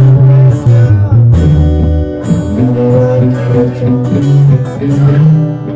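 Live music led by guitar, with sustained low bass notes under bending, pitched melody lines.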